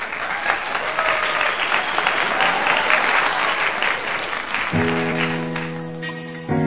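Applause, a dense clatter of many hands clapping, which gives way about two-thirds of the way in to music with sustained chords, a new chord sounding near the end.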